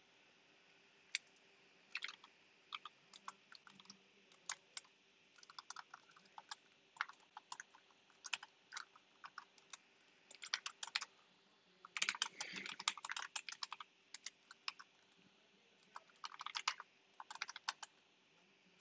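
Typing on a computer keyboard: irregular runs of light key clicks, with a quick flurry of keystrokes about twelve seconds in.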